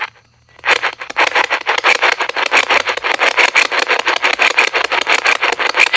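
Rapid, evenly spaced pulses of crackling static, about nine a second, from a ghost-hunting electronic device. They start after a short silence about half a second in and run on steadily.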